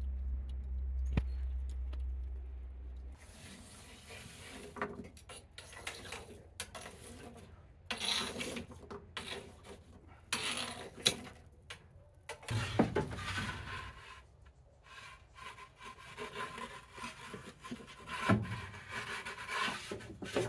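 Lumps of charcoal clinking and scraping against each other and the oven's stone floor as they are pushed about with tongs, in irregular knocks and scrapes. A low steady rumble fills the first few seconds.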